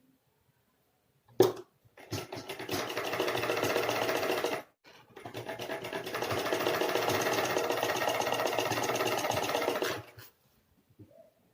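Sewing machine stitching in two runs with a short stop between, each run picking up speed as it starts, sewing a fabric strip onto a kurti panel. A sharp click comes just before the first run.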